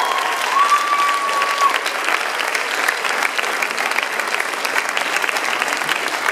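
An audience applauding with dense, steady clapping. A long, high-pitched call from the crowd is held over the clapping and ends a second and a half or so in.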